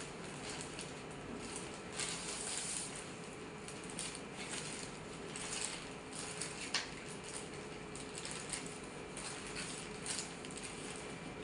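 Hands opening a sterile insertion set: packaging rustling and small clicks and knocks of items being handled, with one sharper click about two-thirds of the way in, over a faint steady hum.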